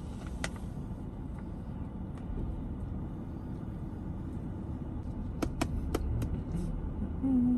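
Steady low rumble of a vehicle, with a few sharp clicks a little over five seconds in and a short steady tone starting near the end.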